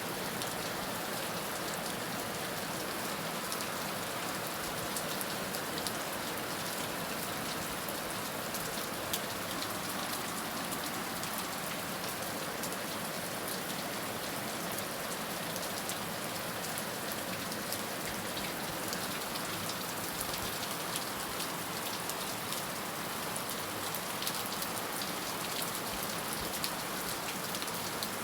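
Heavy rain falling steadily, a dense even hiss with many individual drops ticking on a surface.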